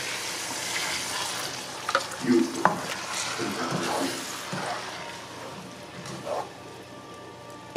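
Sliced onions frying in hot oil in a nonstick frying pan, sizzling steadily while a wooden spoon stirs and knocks against the pan. A blended puree is poured in about halfway, and the sizzle softens after it.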